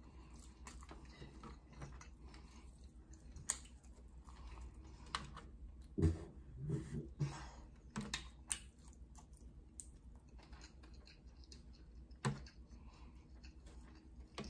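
Scattered light clicks and taps of long fingernails against a clear plastic food tray as fried bone-in fish is picked off the bones by hand, with soft chewing. A few louder knocks come about six seconds in and again near the end.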